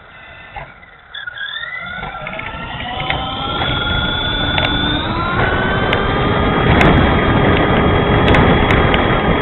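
Dromida SC4.18 RC truck's 370 brushed electric motor and gears whining as the truck speeds up, the pitch rising for a few seconds and then holding at speed under tyre and drivetrain noise. A few sharp clicks come in the second half.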